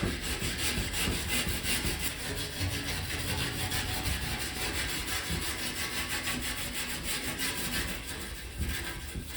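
Kitchen scourer scrubbing leftover residue off a shower door, a scratchy rubbing in quick back-and-forth strokes.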